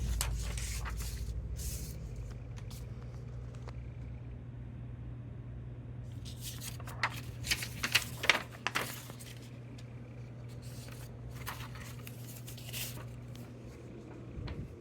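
Rustling and sharp clicking handling noises over a steady low hum, the clicks bunched together in the middle.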